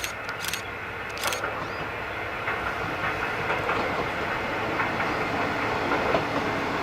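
Kominato Railway KiHa 200 diesel railcar approaching, its running noise and wheel clatter over the rail joints growing steadily louder. A few sharp clicks come in the first second and a half.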